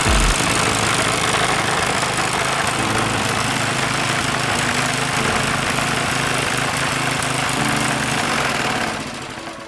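Small engine running steadily at a constant speed, then fading out near the end.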